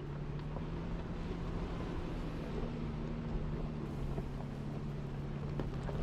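Four-wheel-drive vehicle's engine running at a steady low speed, a constant hum, with its tyres rolling over a rough gravel track and a few faint ticks from stones.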